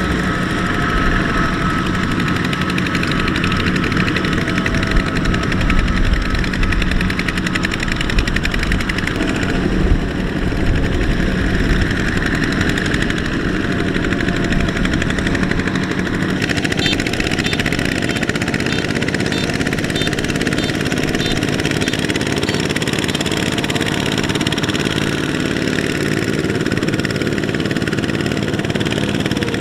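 Kubota RT120 power tiller's single-cylinder diesel engine running steadily under load as it pulls a heavily loaded trailer through a wet paddy field. The sound changes abruptly about halfway through.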